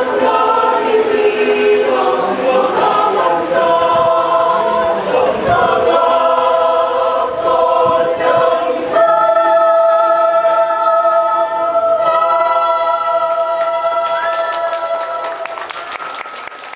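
Mixed choir singing, closing on a long held chord from about nine seconds in that fades out near the end.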